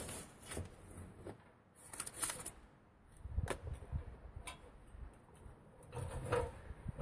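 Rustling and scattered light clicks from trimming and handling building paper (house wrap) by hand.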